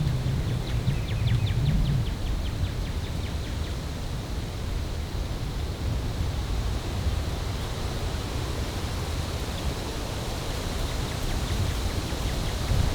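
Wind rumbling steadily on the camera microphone outdoors.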